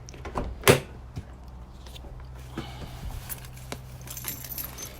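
Car keys jangling with a few sharp clicks and knocks, the loudest about a second in, over a steady low hum.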